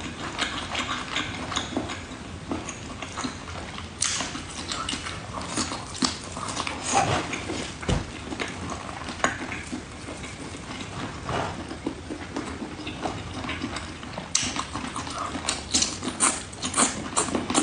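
Chewing and lip-smacking while eating spicy octopus: a steady run of wet clicks and smacks, thickest near the start and again near the end.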